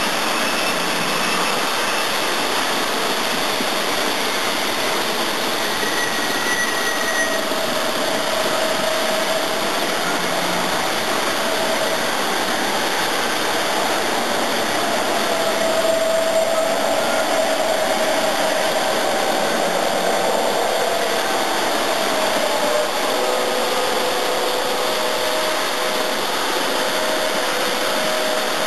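O gauge electric model train running on a three-rail layout: a steady whirring, rushing noise of the locomotive's motor and wheels on the track, with a faint wavering hum.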